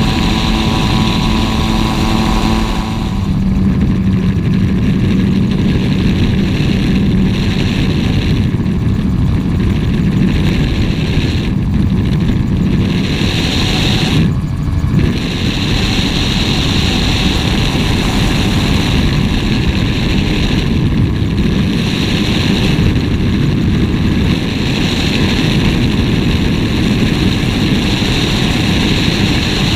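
Gyrocopter in flight: its engine and pusher propeller run steadily at cruise power under loud wind rush on the externally mounted camera. The engine's pitched hum is clearest for the first few seconds, then sinks into the wind noise.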